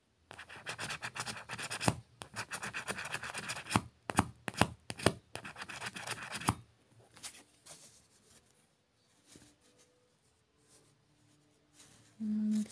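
The coating of a scratch-off lottery ticket being scratched away in quick, rapid scrapes with a few sharper strokes among them, stopping about six and a half seconds in.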